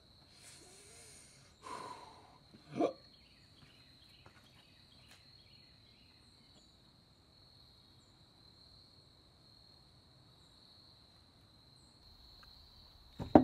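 Faint steady insect trill, with a person drinking water from a glass: a sip, then a gulp and a short sigh about two to three seconds in, and soft swallowing clicks after.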